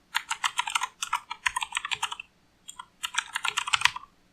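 Typing on a Gamdias HERMES P1 mechanical keyboard with clicky TTC switches made to emulate Cherry MX Blues. Two quick runs of key clicks, with a short pause about two seconds in.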